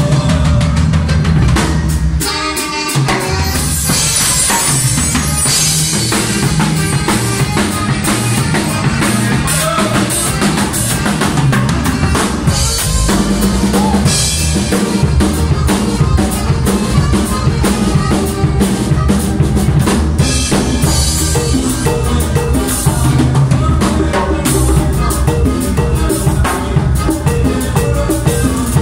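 Live band playing with a drum kit and congas driving a steady beat, the kick and snare loud and close. The low end drops out briefly about two seconds in, then the full band carries on.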